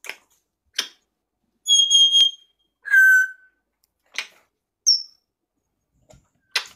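African grey parrot whistling: a steady high whistle held for about half a second, then a lower whistle about a second later, and a short falling whistle near the middle, between short sharp clicks.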